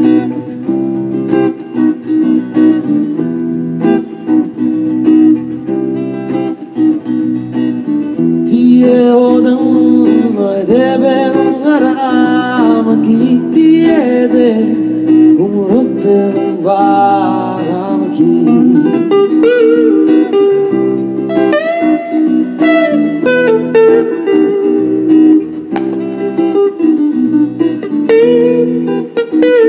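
Electric guitar playing a repeating chord pattern, with a wavering, bending melody line laid over it from about a third of the way in until about two-thirds through.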